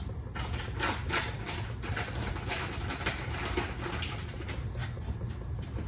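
Scattered light knocks and rustles of someone handling things around a kitchen, over a steady low hum.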